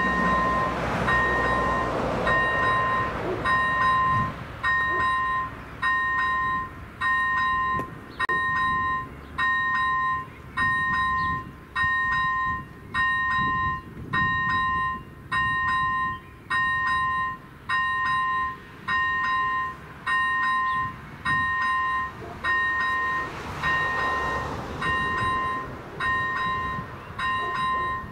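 Level-crossing warning bell ringing an electronic chime, a clear tone pulsing evenly a little more than once a second, which signals that the crossing is closed for an approaching train. A broad rumble runs under the first few seconds and swells again briefly near the end.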